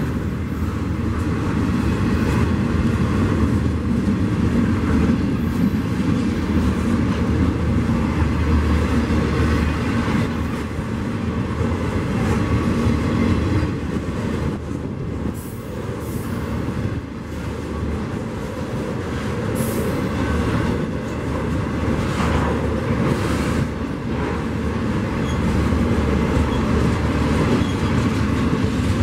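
Intermodal freight train cars, trailers on flatcars and then double-stack container cars, rolling past close by: a steady rumble of steel wheels on rail.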